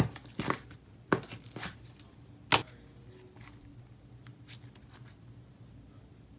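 Thick, creamy batter-dough slime being pressed and stretched by hand, making a few sharp sticky pops and clicks in the first three seconds, then a few faint ticks.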